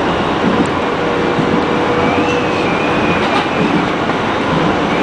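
Kawasaki R160B subway train running along the track, heard from inside the front car: a steady rumble and rattle of wheels on rails, with a faint whine wavering in pitch about midway through.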